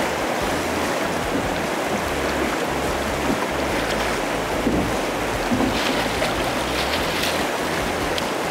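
Fast river current rushing past a drift boat, with wind rumbling on the microphone. A few short crisp sounds come in the second half, as a salmon is brought to the landing net.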